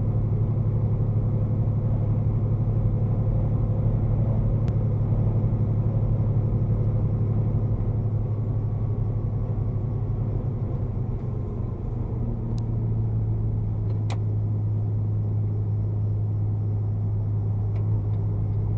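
Steady low drone of a semi truck's engine and road noise heard inside the cab at highway speed, its pitch shifting slightly about ten seconds in. A few faint ticks sound over it.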